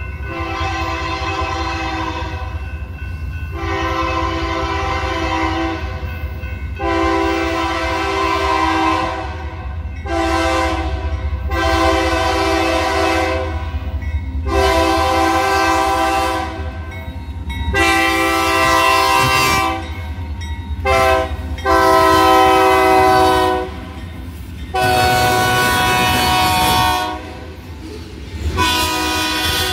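Diesel locomotive's multi-chime air horn sounding a dozen or so blasts, mostly long with a few short, the train's warning for the grade crossing it is approaching. A steady low diesel rumble runs underneath as the locomotives draw near and pass.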